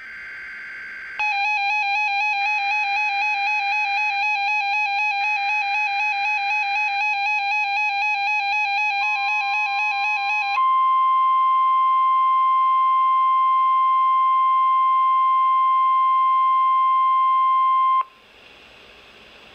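NOAA Weather Radio alert sequence on a RadioShack 12-521 weather radio. It opens with a brief burst of data noise. Then comes a pulsing, warbling alert tone for about nine seconds with more data bursts beneath it, and then the steady 1050 Hz National Weather Service warning alarm tone for about seven seconds, which cuts off sharply.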